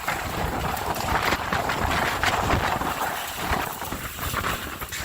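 Strong storm wind gusting against the microphone, a loud, shifting rush with bursts of buffeting, as a tornado passes.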